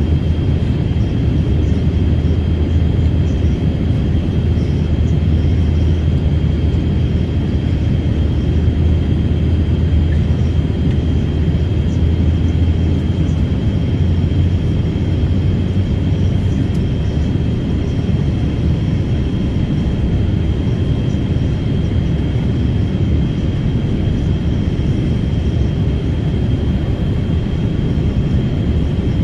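Jet airliner heard from inside the passenger cabin: a steady, loud rumble of engines and airflow with a thin, steady high whine. A deep low hum within it eases off a little past halfway.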